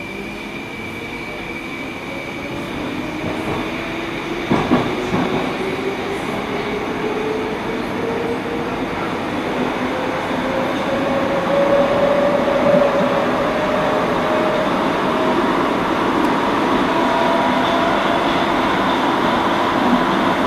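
Interior sound of a Metrowagonmash 81-760/761 'Oka' metro car accelerating away from a station. The traction drive's whine climbs steadily in pitch over a growing rumble of wheels on rail, with a brief knock about four and a half seconds in.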